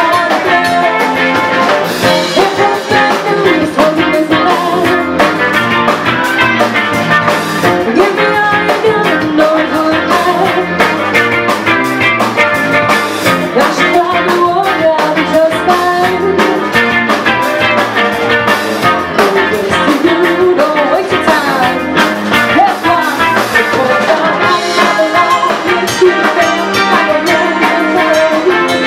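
Live band playing at full volume: a woman singing lead into a handheld microphone over drum kit and bass guitar, continuous throughout.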